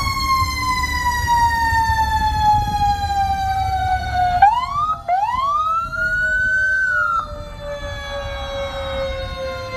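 Fire truck siren winding down, its pitch falling slowly and steadily the whole time. Midway a second siren sweeps up twice, holds high and cuts off sharply, over a low engine rumble.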